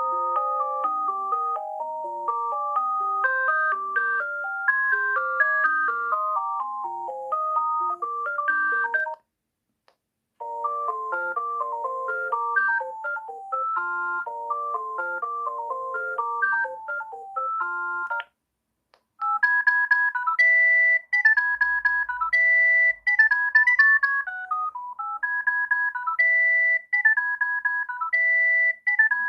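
Alcatel OT-153 mobile phone playing its built-in ringtones one after another: three short electronic tunes, with brief silent gaps about nine and eighteen seconds in. The last tune is higher-pitched and repeats a short phrase.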